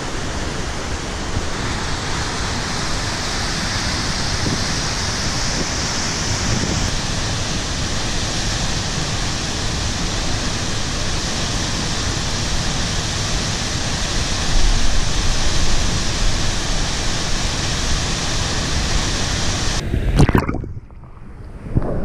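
Waterfall roaring: a steady, loud rush of falling water. It cuts off suddenly about two seconds before the end, leaving a few low thumps.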